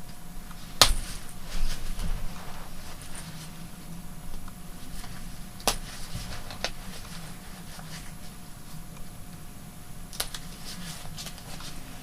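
Seam ripper cutting through a coat's zipper stitching: scattered small sharp snaps and ticks as threads are cut and the fabric is handled, the loudest snap about a second in.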